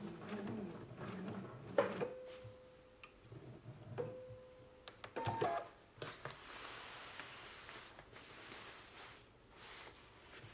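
Electronic sewing machine stitching briefly, then stopping about two seconds in, followed by three short beeps from its controls, the last a two-note beep, with a few clicks and fabric handling after.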